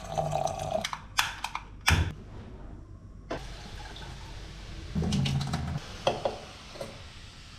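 Tap water pouring into and rinsing a metal Moroccan teapot in a stainless-steel sink, with a few sharp metal clanks of the pot. The water runs steadily from about a third of the way in.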